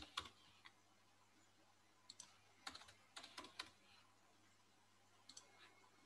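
Faint typing on a computer keyboard: a few scattered keystrokes, a quick run of them about two to four seconds in, then a couple more near the end.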